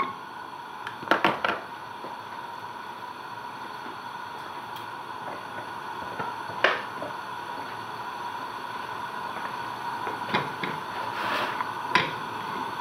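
Knife and then a spatula clicking and knocking against a nonstick frying pan as a lump of butter is dropped in and pushed around: a quick run of clicks about a second in, a single click midway, and a couple more near the end, over a steady background hiss.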